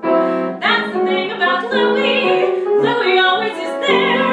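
Soprano singing a musical-theatre song with piano accompaniment.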